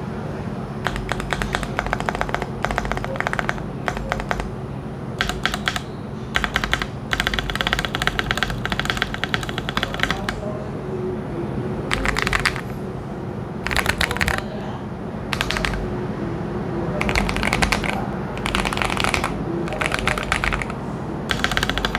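Keychron Q1 mechanical keyboard with lubed Lilac tactile switches, being typed on in bursts of rapid keystrokes with short pauses between, over a low steady background noise.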